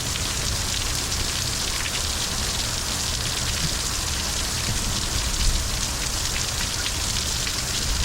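Heavy rain pouring down steadily, a dense hiss with many fine drop patters.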